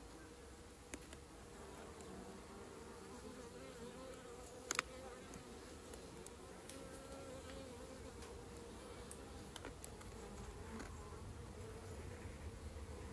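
Honeybees buzzing from an open hive, a faint steady hum that wavers slightly in pitch, with a few light clicks and one sharper knock just under five seconds in.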